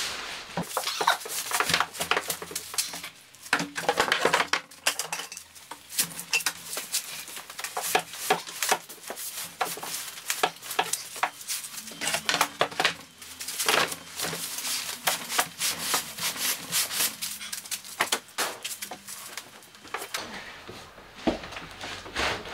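Irregular knocks, bumps and scrapes of heavy items being shifted in an SUV's cargo area and a wooden board being lifted and set on a workbench, with a heavy cardboard-boxed bandsaw dragged to the rear of the hatch.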